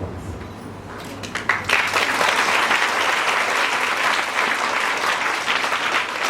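An audience of students applauding, starting softly about a second in and quickly swelling into sustained clapping.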